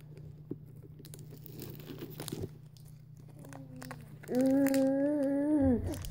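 Foil Pokémon booster-pack wrapper crinkling as it is slowly peeled open by hand, with small clicks. About four seconds in, a voice holds one long hummed note that drops in pitch as it ends.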